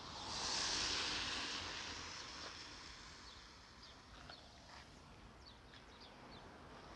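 A high buzzing hiss of insects swells to its loudest about a second in and slowly fades, with faint short high chirps in the later part.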